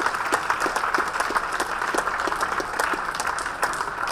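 Audience applauding: a steady round of dense clapping.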